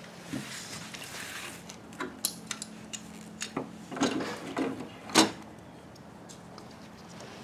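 Scattered clicks and knocks of power-wheelchair parts being handled during a battery installation, with a cluster of knocks about four to five seconds in and the loudest just after five seconds, over a faint steady hum.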